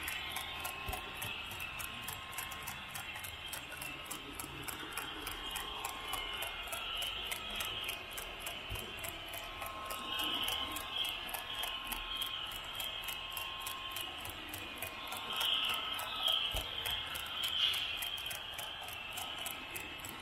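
Model railway spoil train of loaded hopper wagons running along its track, heard from on board, with a steady rapid ticking of wheels on the rails.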